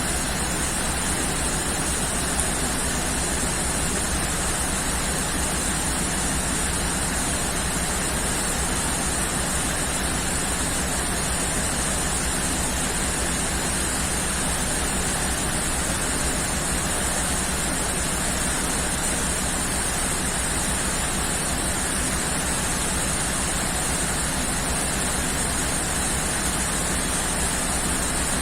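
Heavy rain falling as a steady, even hiss, with no thunderclaps.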